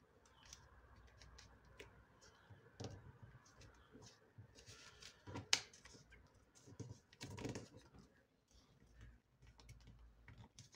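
Faint handling of a square of origami paper being folded and creased by hand: soft rustles and small crinkles, fingers pressing and sliding the paper on a wooden tabletop, with a sharper click about halfway through.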